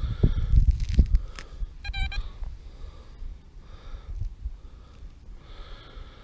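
Metal detector giving one short warbling beep about two seconds in as soil is passed over its search coil, the signal of a metal target in the clod, which turns out to be a scrap of aluminium. Around it, rustling and knocking of soil and grass being broken apart by hand.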